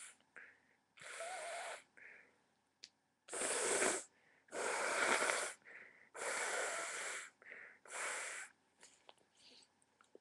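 A person blowing their nose hard: five noisy blasts, each under a second to about a second long, the second and third the loudest.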